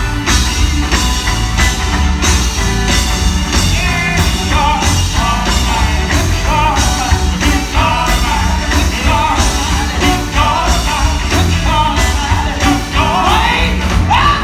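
Live gospel band playing a steady beat on drums and bass, with a singer's sliding vocal runs coming in about four seconds in.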